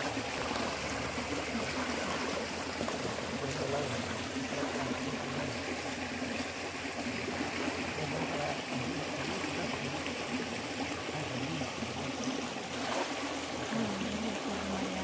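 Shallow stream water rushing steadily, with swishing and splashing as legs wade through it.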